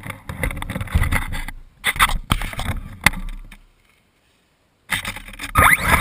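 Sound from a camera riding on a radio-controlled buggy: rattles, knocks and rushing noise in uneven bursts, cutting out completely for about a second. Near the end the motor's whine rises in pitch as the car speeds up.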